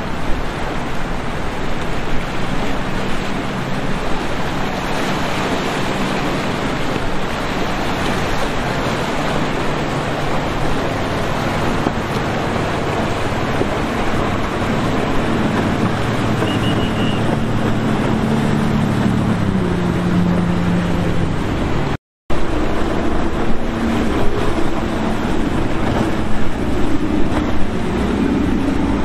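Boat engines running at speed over a steady rush of wind and water, the engine pitch climbing over several seconds as a boat accelerates past. The sound drops out for a moment about two-thirds of the way through, then the engines carry on.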